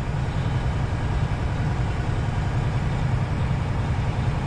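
Semi-truck running at road speed, heard from inside the cab: a steady low diesel engine drone mixed with road noise, unchanging throughout.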